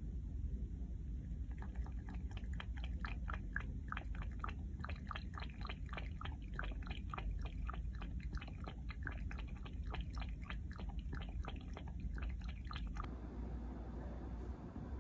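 A cat lapping water from a glass water bowl: a fast, even run of wet laps, about four a second, that starts a second or two in and stops a couple of seconds before the end.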